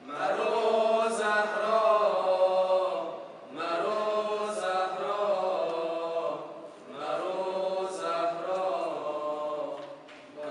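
Male tawashih group chanting an unaccompanied devotional nasheed into stage microphones, in three long sustained phrases with brief breaths between them.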